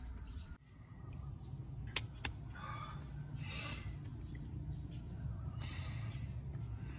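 A distressed man breathing and sniffling in short hissing breaths, with two sharp clicks about two seconds in, over a low steady hum.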